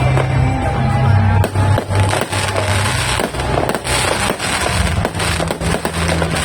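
Fireworks from a 5,000-shot cake going off in a rapid, continuous string of bangs and crackles, with background music running underneath.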